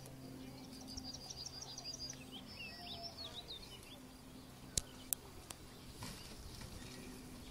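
A small bird singing a quick series of high repeated chirps for a few seconds, over a faint steady low hum. Two sharp clicks a fraction of a second apart, about five seconds in, are the loudest sounds.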